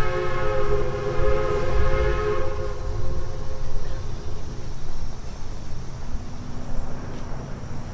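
Multi-chime steam whistle blowing a held chord that dies away about three to four seconds in, over the low rumble of engines running.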